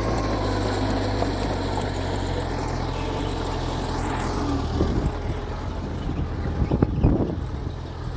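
Mitsubishi G2 bulldozer's diesel engine running steadily. From about five seconds in, irregular knocks and clatter join it.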